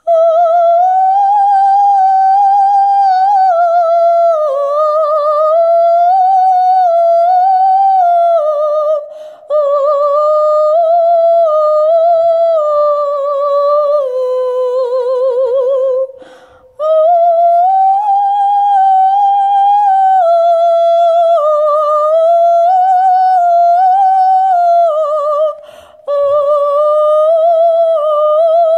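A singer humming a wordless melody in a high, steady tune with vibrato, broken by three short pauses for breath about 9, 16 and 26 seconds in.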